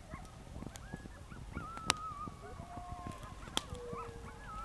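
A pack of coyotes howling and yipping: several wavering, gliding calls overlap one another. Two sharp clicks stand out, about two seconds in and about three and a half seconds in.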